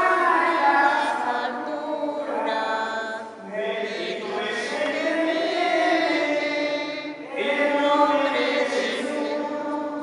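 Church choir singing a Mass chant with voices in long held phrases, breaking briefly twice.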